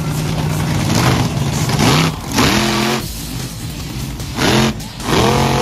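Monster truck engine revving hard in three bursts, the pitch climbing and then holding each time, as the truck drives across the dirt track.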